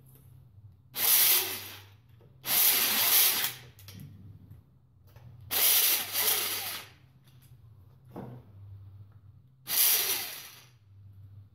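A pneumatic tool on an air hose running in four short bursts, driving bolts into an engine crankcase, each burst with a hiss of exhaust air.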